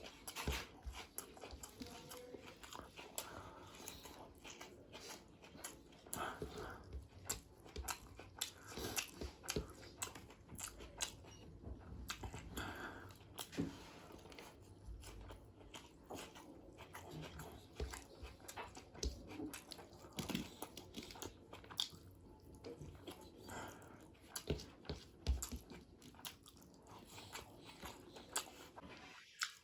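Close-miked eating of chicken biryani: biting and chewing with many short, irregular mouth clicks and smacks.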